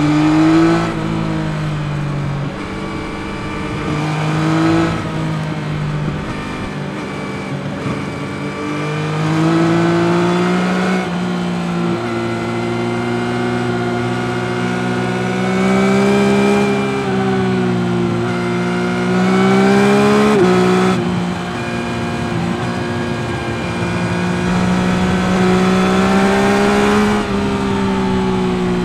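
2021 Yamaha MT-09's 890 cc three-cylinder engine under hard riding. It rises in pitch under acceleration and eases off again, with quick pitch drops at gear changes.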